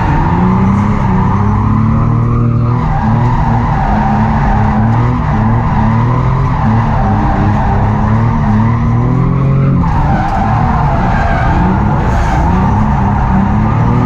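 Nissan 350Z drift car on a drift run: the engine revs up and falls back again and again as the throttle is worked, and the tires screech steadily throughout.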